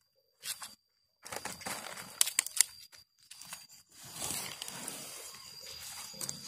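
Close rustling and scraping of a cat scuffling right against the phone and the woven bamboo tray, with a few sharp clicks a little after two seconds in, then steadier rustling to the end.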